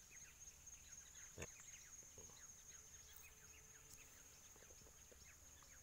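Near silence: a faint steady high-pitched insect drone with scattered faint chirps, and one soft tap about a second and a half in.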